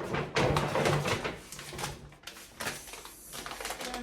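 Packets and containers of spices being handled: a burst of rustling packaging followed by scattered light clicks and knocks.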